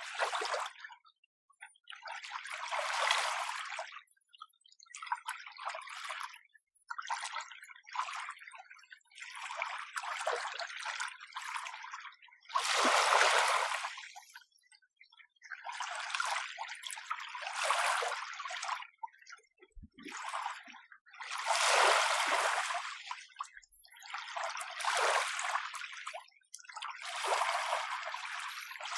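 Small, gentle waves lapping at a shore, each a short surge of wash followed by a brief quiet gap, about one every two to three seconds. Two or three of the surges are louder than the rest.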